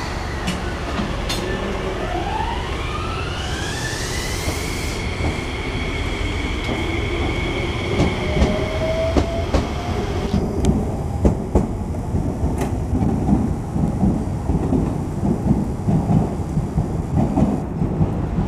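Enshu Railway electric train pulling away, its motors whining up in pitch over about two seconds and then holding a steady whine. About ten seconds in the sound changes to a train's wheels clattering and knocking over rail joints and points.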